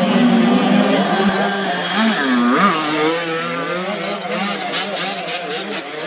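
Several 85cc two-stroke motocross bikes racing, their engines revving up and down over one another, with one steadier engine note running underneath.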